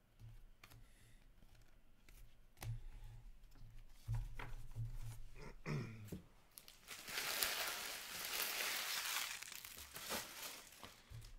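Handling noises and light clicks, then a loud stretch of crinkling, tearing plastic packaging lasting about two and a half seconds past the middle, with a few short rustles after it.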